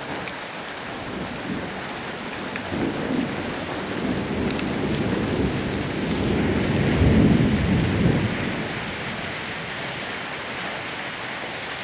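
Rain falling steadily through a thunderstorm, with a long roll of thunder that builds a few seconds in, is loudest past the middle, and rumbles away before the end.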